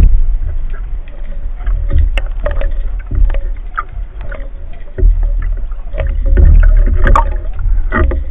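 Water sloshing and rumbling against a speargun-mounted camera's waterproof housing just below the sea surface. Scattered knocks and clicks come from the speargun and line being handled, and the rumble grows louder about five seconds in.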